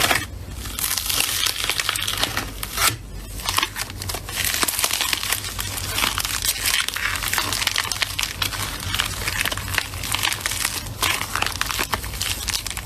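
Slime being squeezed and worked by hand, making a dense crackling and popping with a brief lull about three seconds in.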